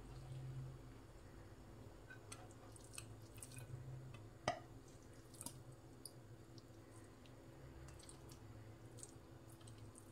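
Near silence: faint room hum with a few small, soft clicks and one sharper click about four and a half seconds in.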